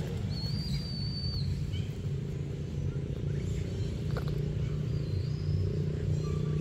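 Steady low rumble, with a thin high whistle lasting about a second near the start and a shorter one about five seconds in.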